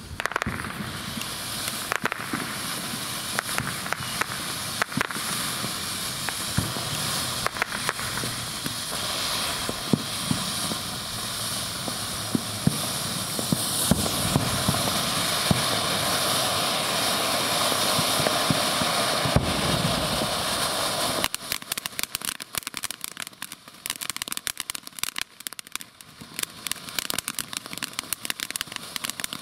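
Ground fountain firework lit and spraying sparks with a steady rushing hiss and scattered crackles. About two-thirds of the way through it switches abruptly to dense, fast crackling.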